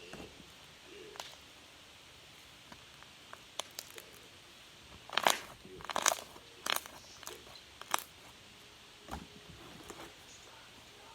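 A run of sharp crackles and crunchy clicks, scattered at first, with the loudest cluster about five to eight seconds in and a few more near the end.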